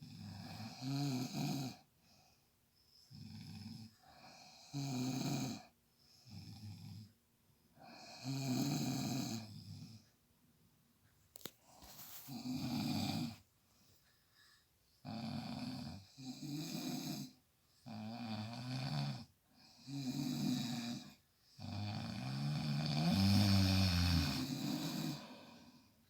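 Two sleeping men snoring: rasping snores one after another every second or two, some louder and some softer, the longest and loudest near the end.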